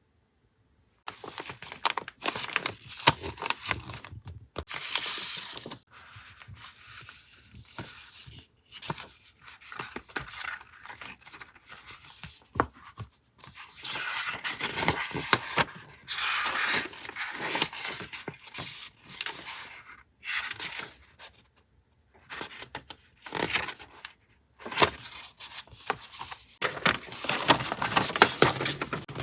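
Gift packaging being unwrapped by hand: paper wrapping rustling and tearing in irregular bursts, starting about a second in, with brief pauses.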